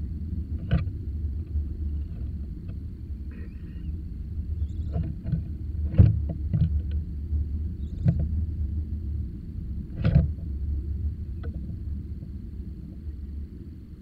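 A steady low rumble with a handful of short knocks and taps scattered through it; the loudest knock comes about six seconds in and another about ten seconds in.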